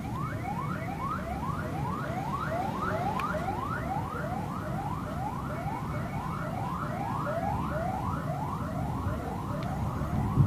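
Electronic alarm siren repeating a quick rising whoop about three times a second, over a low, steady rumbling noise.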